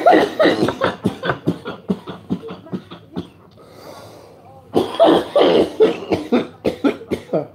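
A man coughing hard in two fits of rapid, rough coughs, the second starting about five seconds in, set off by harsh cannabis smoke he has just inhaled.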